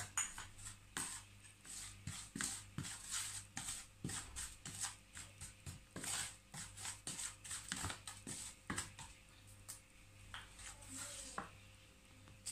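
A wooden spoon and a plastic spoon tapping and scraping in a plastic mixing bowl as dry spices are stirred together, in irregular light clicks and scrapes, fewer after about nine seconds in.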